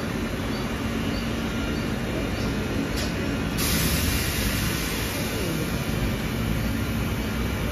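Mumbai suburban electric local train rolling slowly past the platform: a steady rumble with a low hum. About three and a half seconds in, a steady high hiss joins and continues.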